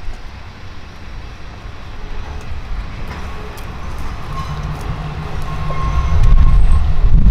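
Diesel railcar running as it pulls slowly away along the track, a low rumble that grows much louder about six seconds in.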